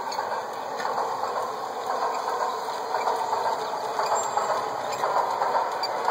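G-scale model trains running on track, with a steady whir of electric motors and gear drives and faint clicking of wheels over rail joints as a train comes closer.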